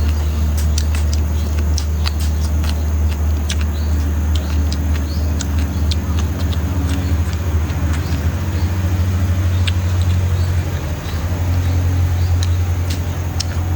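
A person eating, with many short wet clicks and smacks of chewing, over a steady low rumble that is the loudest sound throughout.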